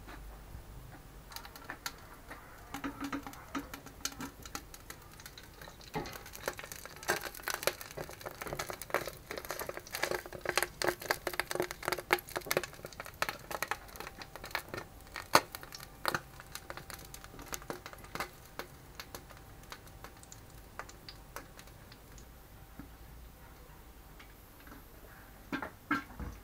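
Irregular clicking, scraping and crinkling as a residue-caked filter bowl is handled and lifted out of a stainless-steel pot. The clatter is busiest from about six to sixteen seconds in, with one sharp click near the middle, then settles to quieter handling.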